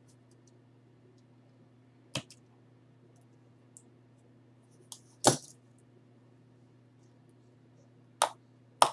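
Box cutter slicing the tape on a wrapped stack of trading cards: a few sharp clicks and snaps of blade on tape and plastic, spread out, the loudest about five seconds in and two close together near the end, over a faint low hum.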